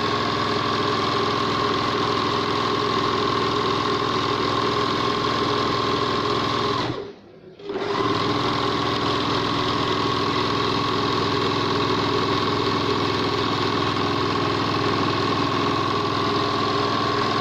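Okurma 620-F three-thread overlock machine running steadily at speed, stitching a fine narrow edge on thin fabric. It stops briefly about seven seconds in and starts up again a second later.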